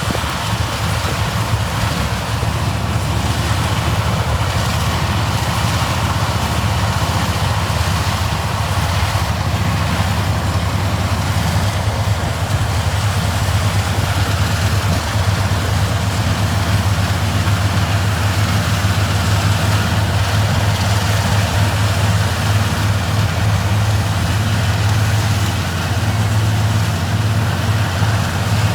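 Engine of vintage harvest machinery running steadily, a low, even drone with a broad mechanical rattle over it.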